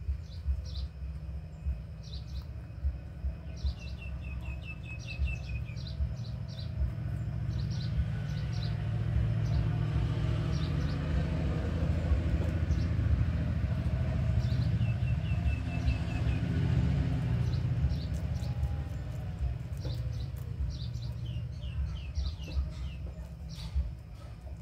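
Small birds chirping with short, high calls, twice breaking into a quick run of falling notes, over a steady low rumble that swells through the middle and then eases.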